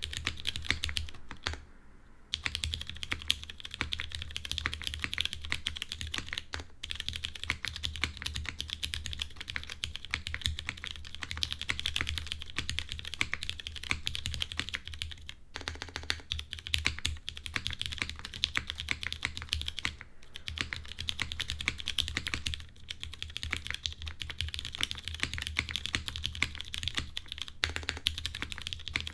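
Fast, continuous typing on a Smith+Rune Iron165 r2 mechanical keyboard with lubed vintage Cherry MX Brown switches, a full aluminum plate and GMK keycaps, broken by a few short pauses, the longest about two seconds in.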